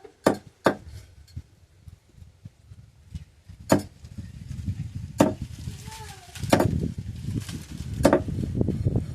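A blade chopping through chicken: about six sharp chops at irregular intervals, two close together at the start and the rest a second or more apart, over a low rumbling handling noise in the second half.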